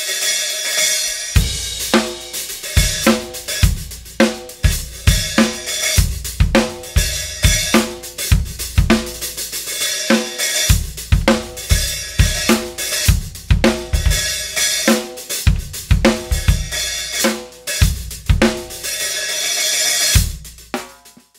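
Drum kit groove played steadily: hi-hats over bass drum and snare. The hi-hats are a crack-repaired pair with holes drilled or sawn into the bottom cymbal, which gives them a thinner sound. The playing cuts off suddenly near the end.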